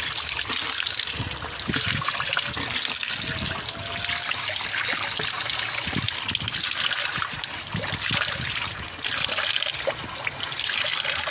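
Water running steadily from a brass wall-fountain tap, pouring over a cupped hand and splashing into the basin below.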